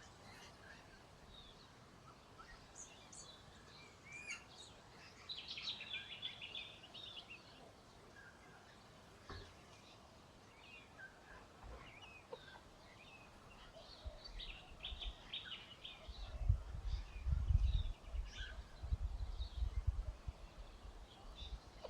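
Small birds chirping with short, rapid trills, over a quiet background; near the end, low rumbling knocks, like handling or movement near the microphone, are louder than the calls.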